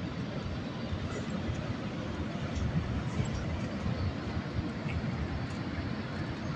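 PKP Intercity EP07 electric locomotive passing beneath, its wheels and running gear giving a steady low rumble on the rails.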